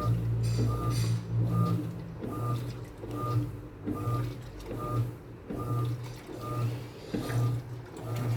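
Electrolux Essential Care LES09 washing machine agitating: its motor hums in short strokes about every three-quarters of a second, each starting with a brief whine. A lower rumble stops about a second in.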